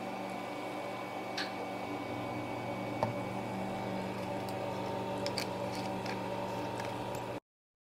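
Thick fruit juice pouring from a plastic jug into a drinking glass, over a steady low hum, with a few light clicks and taps as the jug and glass are handled. The sound cuts off abruptly near the end.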